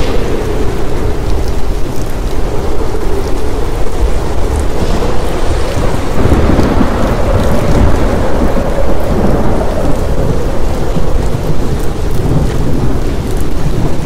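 Thunderstorm: steady heavy rain with rolling thunder, the rumble swelling strongest about six to eight seconds in. A low wavering howl, like wind, runs under it.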